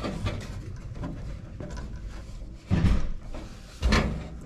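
Hands working inside an espresso machine's open base: faint rustling, then two dull knocks about three and four seconds in.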